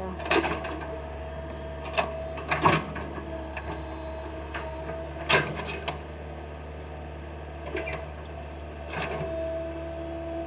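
Excavator running with a steady engine hum and a whine, with several sharp knocks scattered through it as the machine edges down a slope with its bucket braced on the ground.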